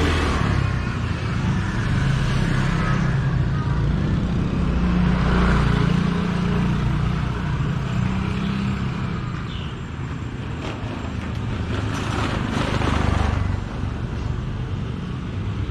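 Street traffic: motor vehicles running past close by, with a steady low engine hum that swells as vehicles pass.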